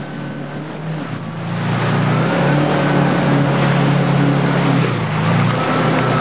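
Yamaha WaveRunner FX HO personal watercraft running at low cruising speed. The engine hum eases off briefly near the start, then picks back up and holds steady over the hiss of water and wind.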